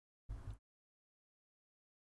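Near silence, broken once by a brief low thump about a third of a second in.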